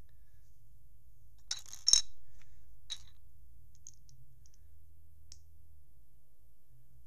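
Plastic Lego bricks being handled and snapped together: a quick cluster of sharp clicks about two seconds in, the loudest sound here, then a single click a second later and a few faint ticks.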